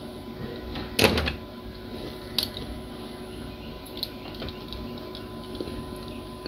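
A hard knock about a second in, then a few lighter clicks, as a small circuit board and soldering iron are handled and set down on a workbench, over a faint steady hum.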